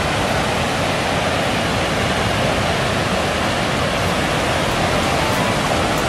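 Steady rush of canal water pouring over a low weir beneath a footbridge.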